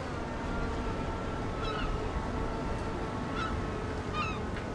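Seagulls calling around a ship at sea: three short cries over a steady low rumble.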